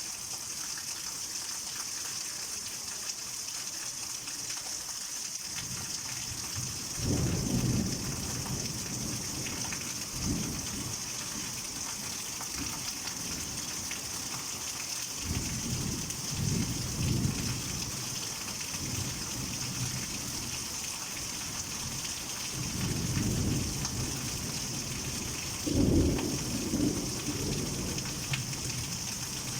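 Heavy rain falling with a steady hiss while thunder rumbles low several times, the loudest roll near the end.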